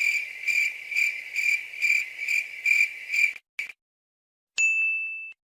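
Comedy sound effects: a high pulsing trill, about two pulses a second, for about three and a half seconds. After a short pause comes a single short ding near the end.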